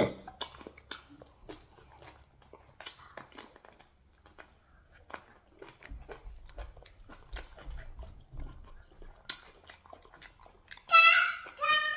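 Close-up eating sounds: chewing, lip smacks and small clicks of food being eaten. Near the end, two short high-pitched cries.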